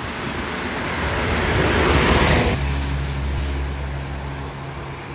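Traffic on a wet road: a truck comes closer and passes, its tyre hiss and engine noise swelling to a peak about two seconds in. After an abrupt change, a bus engine runs steadily with an even low drone.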